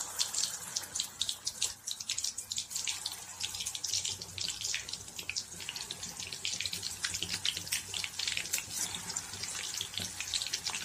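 Minced-mutton balls (kola urundai) deep-frying in hot oil: steady sizzling with a dense run of small crackling pops.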